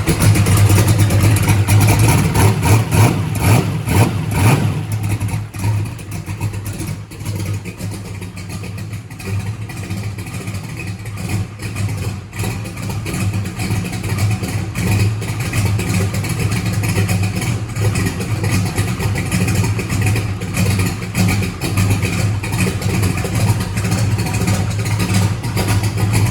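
Turbocharged race-car engine on Holley EFI running after a fresh start. It is louder and unsteady for the first few seconds, then settles into a steady idle. It now runs because the fault was a disconnected throttle position sensor, not the fuel pump.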